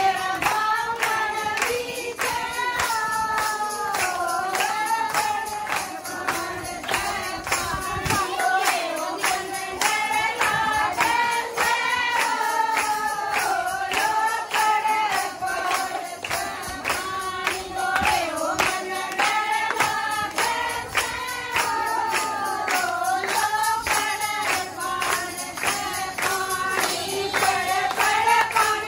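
A group of women singing a Haryanvi folk bhajan to Shiva in unison, with hand-clapping keeping a steady beat of about two to three claps a second.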